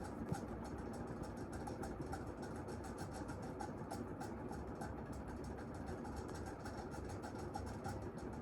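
Mistralaire MCFA48 industrial ceiling fan running on medium speed, its worn-out bearings making a steady noise with rapid fine ticking throughout.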